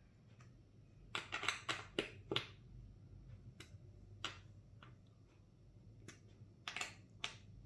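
Sharp clicks of a hand tool working the chair's bracket screws as they are tightened. The clicks come in a quick cluster about a second in, a few single ones after that, and another cluster near the end.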